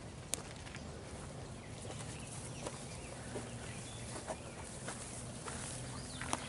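A horse grazing on hay over dirt: scattered soft crunches and clicks as it pulls and chews the hay and shifts its hooves, over a low steady background hum.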